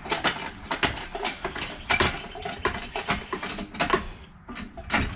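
Irregular sharp clicks and knocks, several a second, from parts and a wooden block being handled under the car during rear suspension work.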